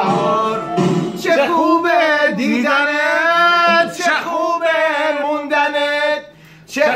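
A man singing a Persian song, holding long notes that waver up and down, with a brief pause for breath near the end.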